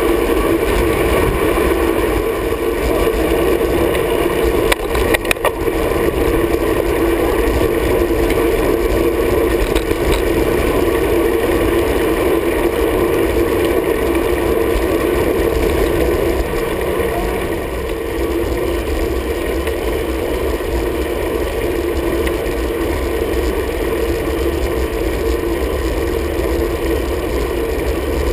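Wind and road noise on a road bike's handlebar-mounted camera riding in a pack: a steady rushing rumble, with a short rattle of clicks about five seconds in.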